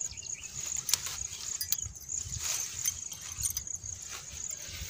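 Grass rustling and crackling in short bursts as hands push the blades apart, over a steady high-pitched insect drone.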